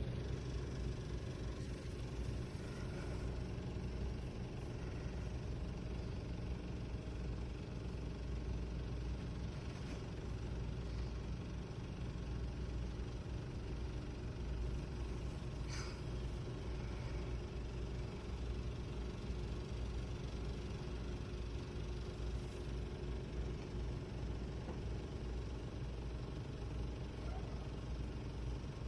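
Blue Bird bus engine running steadily, a low even drone, with one brief click about halfway through.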